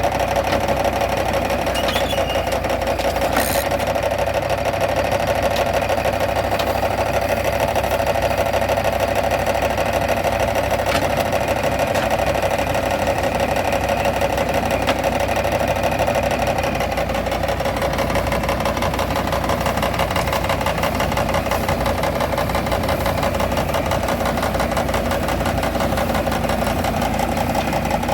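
Tractor engine running steadily under load while driving an Allis-Chalmers Roto-Baler, with a fast, even mechanical beat from the machinery.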